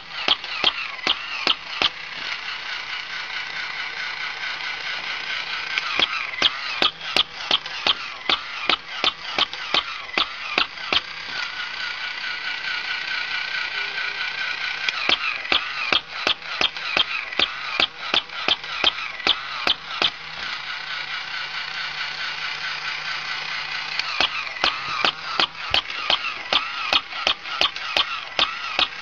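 Walking plush toy dog's small battery motor whirring with a wavering whine, while its walking gears click in rapid runs of several clicks a second, pausing now and then.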